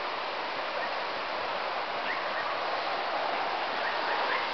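Steady rushing outdoor noise, with a few faint short rising chirps about two seconds in and again near the end.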